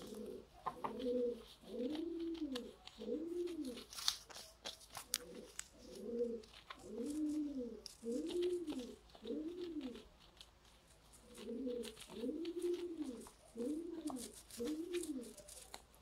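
Rock pigeon cooing in three bouts, each a run of five or six low notes that rise and fall.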